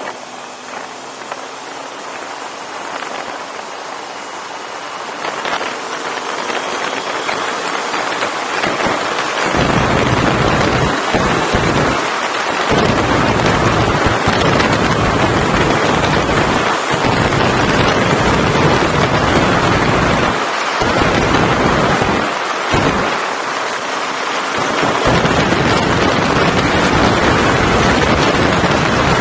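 Wind rushing and buffeting over the microphone of a moving motorcycle, growing much louder about a third of the way in and gusting unevenly. In the first few seconds the motorcycle engine is faintly heard rising in pitch under the wind.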